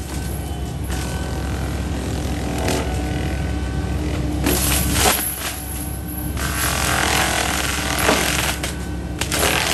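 Excavator-mounted FAE forestry mulcher chewing through brush and small trees over the steady drone of the excavator's diesel engine. Its spinning drum gives repeated bursts of crashing and splintering as it bites into the wood.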